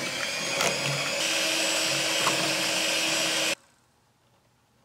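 Electric hand mixer with twin wire beaters whipping a thick cream and strawberry mixture in a glass bowl, running steadily, then switched off about three and a half seconds in as the mixture reaches ice cream consistency.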